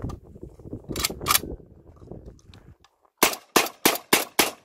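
Maestro AR-12 semi-automatic shotgun fired five times in quick succession, about three shots a second, cycling light 24-gram shells without a stoppage.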